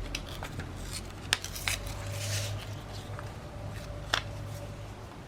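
Paper and craft tools handled on a work table: a few sharp clicks and taps, with a brief paper rustle about two seconds in.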